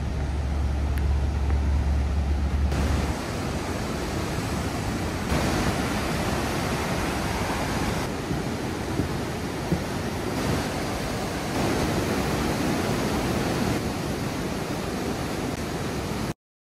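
Steady rushing of Snoqualmie Falls and its river, with a heavy low rumble in the first three seconds, changing in level at several abrupt cuts.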